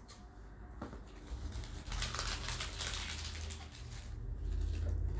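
Packing tape being torn open on a cardboard shipping box by hand: a dense crinkling, tearing stretch begins about a second and a half in and lasts about two seconds, and a low rumble of the box being handled builds near the end.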